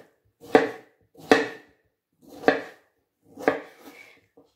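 Kitchen knife cutting a raw potato into cubes on a bamboo cutting board: four separate chops about a second apart, the blade knocking through onto the board each time, with a lighter one near the end.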